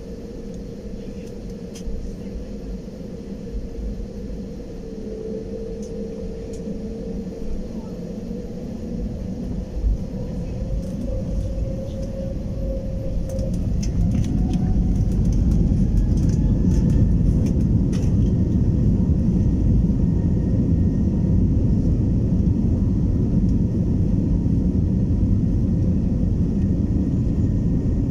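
Jet engines of an Airbus A320-family airliner heard from inside the cabin: a steady hum whose whine rises in pitch about halfway through as the engines spool up, followed by a louder, steady low rumble. A few light clicks come in the middle.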